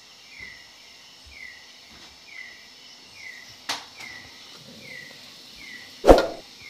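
An aluminium pan lid on a wok is handled on a gas stove, striking the rim with a sharp metallic clank about six seconds in, the loudest sound, after a lighter click a little before four seconds. Behind it a short falling chirp repeats about once a second.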